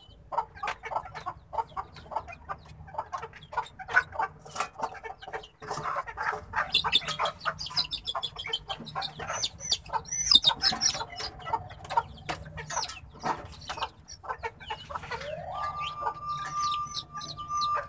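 Chickens clucking, with a run of high peeps in the middle. Near the end, a wailing tone rises and then holds steady.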